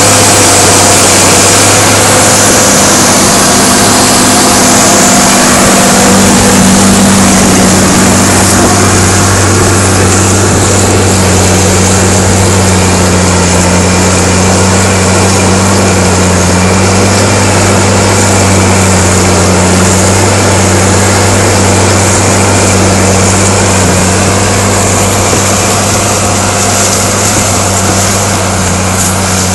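New Holland TG285 tractor's six-cylinder diesel engine running steadily under load while pulling a four-furrow plough.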